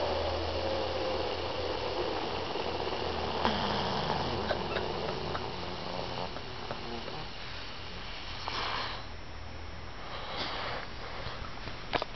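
A man snoring in his sleep: a low snore that fades away over the first few seconds, then a short breathy rush about eight and a half seconds in.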